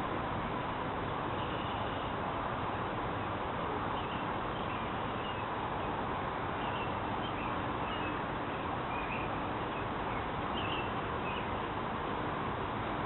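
Faint, short high-pitched chirps of baby birds, scattered irregularly, over a steady background hiss.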